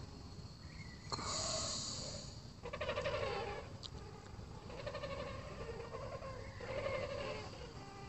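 A flock of demoiselle cranes calling in flight: repeated, overlapping rolling calls, a new bout every second or two.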